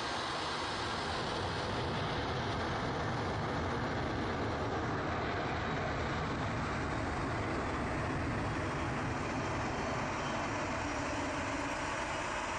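Steady, distant jet engine noise from a Boeing 737 moving along the runway, with no breaks.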